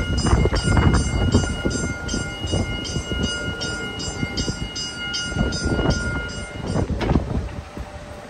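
Tram crosswalk warning signal sounding: a steady high multi-note tone with a rapid pulsing chime, about three pulses a second, that stops about seven seconds in. A gusty low rumble runs underneath.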